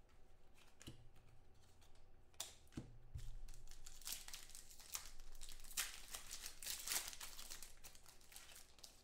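A foil trading-card pack wrapper crinkling and tearing as it is pulled open by hand: a run of crackly rustles starting about two seconds in, busiest in the middle and thinning out near the end.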